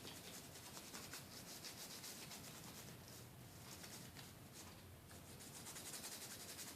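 Faint, rapid scratchy scrubbing strokes of a brush on a circuit board, cleaning corrosion off a water-damaged iPod Classic hard-drive board.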